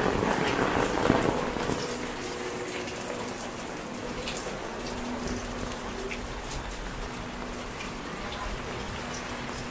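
Rain falling on the alley's roofs and ground: a steady hiss of rain with many separate drops tapping and dripping.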